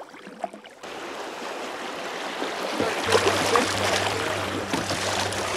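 Creek water rushing through a shallow, rocky riffle around a kayak. It starts abruptly about a second in and grows louder, with a low steady hum joining about halfway.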